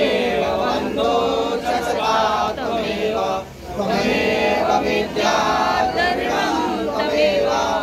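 Men's voices chanting a Hindu devotional hymn together, in sung phrases separated by brief pauses, one about halfway through.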